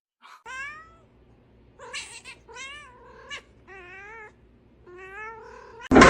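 Cat meowing over and over, about six drawn-out meows in a row, each rising and falling in pitch.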